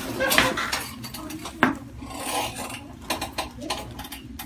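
Rustling and rubbing on a chiropractic treatment table and its paper face cover, broken by several sharp clicks, the loudest about a second and a half in.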